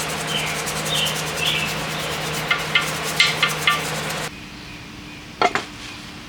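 Steady rubbing or scrubbing, like a scouring pad worked over a metal part, over a low machine hum; both stop abruptly about four seconds in. A quick double knock follows near the end.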